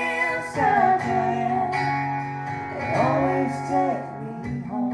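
Two acoustic guitars strummed while a man and a woman sing a country song together, holding long notes.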